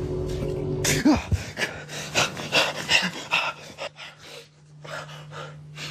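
A man jolting awake and panting hard, a quick run of short, gasping breaths that trail off into a few fainter ones. A low steady hum cuts off about a second in, just as the breathing starts.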